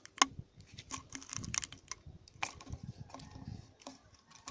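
Scattered small clicks and rustles of handling noise, with one sharp, louder click about a quarter second in.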